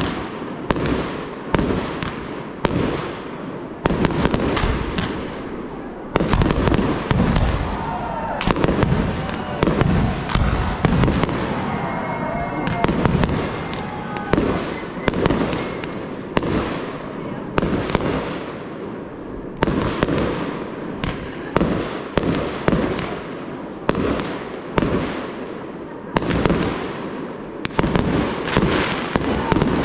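Fireworks display: a rapid barrage of mortar launches and aerial shell bursts, two or three sharp bangs a second, each with a short echoing tail.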